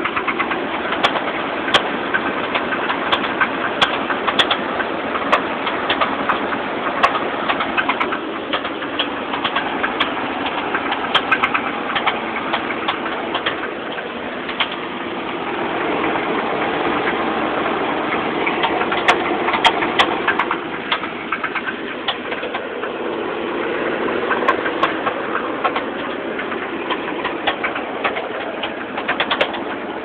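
1986 Chevrolet Silverado's 305 V8 running with an irregular knocking or rattling over the engine note. The ticks come unevenly rather than in a steady beat, which the owner takes to mean it is not a rod knock.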